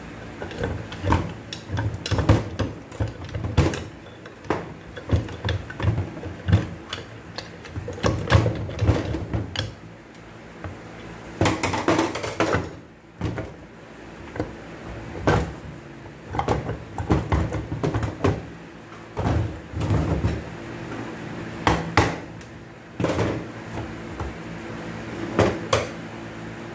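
Irregular metal knocks, clanks and scrapes as a stuck gear and output shaft are worked at in a Hyundai 4WD gearbox that is being taken apart; the gear is jammed by a stripped gear and will not pull out. A steady low hum runs underneath.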